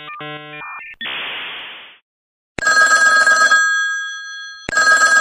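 The tail of a dial-up modem handshake: rapidly switching tones, then a burst of hiss that fades out. After a short gap, an old telephone bell rings loudly twice, about two seconds apart, each ring a fast clapper rattle with the bell's tone hanging on after it.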